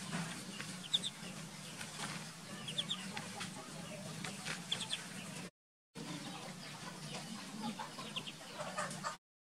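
Ducklings peeping: short, high peeps in quick clusters of two or three, repeated every couple of seconds over a steady low hum. The sound drops out completely for a moment about halfway through.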